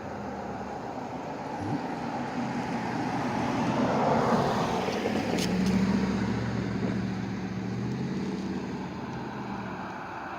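A road vehicle passing by: its noise swells to a peak about four seconds in, then fades, with a low engine hum lingering afterwards.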